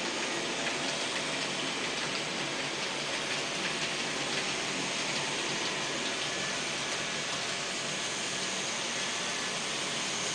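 N-scale model freight train rolling along the track: a steady, even hiss of small wheels on rail, with a few faint ticks.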